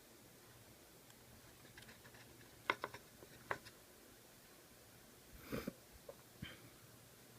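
A few scattered light clicks and knocks over faint room tone, with a short cluster of them past the middle: small handling sounds of hand work.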